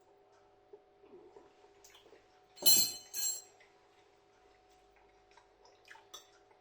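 Spoon clinking and scraping in a microwave-meal tray during eating: scattered light ticks, with a louder double clatter about halfway through, over a faint steady hum.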